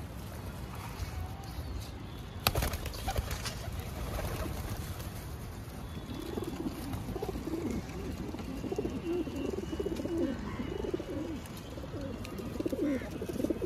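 Domestic pigeons cooing: from about six seconds in, a dense run of low, wavering coos from several birds, over a steady low rumble. A single sharp knock comes about two and a half seconds in.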